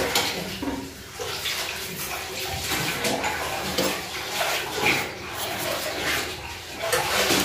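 Steady rushing hiss of a lit gas stove burner heating a small steel pan of milk, with faint light knocks now and then.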